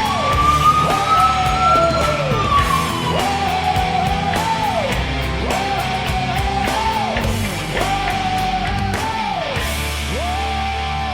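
Rock music with a heavy beat: the Washington Capitals' goal song. A lead line repeats a short phrase that climbs, holds and drops, about every second and a half.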